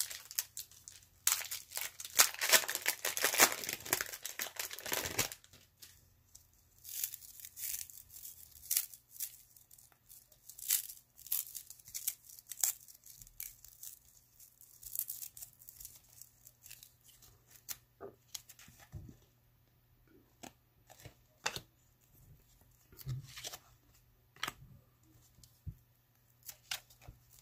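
Baseball card pack wrapper being torn open, with loud crinkling and tearing for a few seconds about a second in, followed by scattered soft crackles and ticks as the wrapper and cards are handled.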